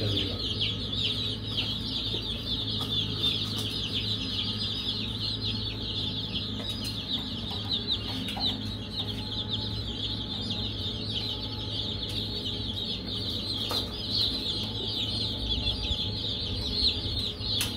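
A brood of baby chicks peeping without pause: many short, high, falling cheeps overlapping each other, over a steady low hum.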